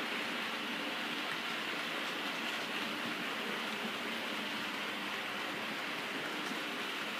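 OO gauge model train running along the track: a steady, even rolling noise of wheels and motor.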